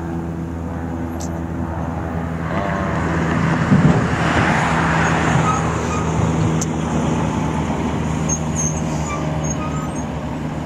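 Road traffic on a multi-lane street: a steady low engine drone underneath, with a vehicle passing close by that swells loudest about four to five seconds in and then fades.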